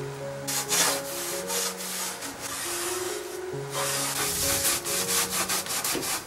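Cloth rubbing wax into a wooden drawer in back-and-forth strokes, the strokes coming quicker about four seconds in. Soft piano music plays beneath.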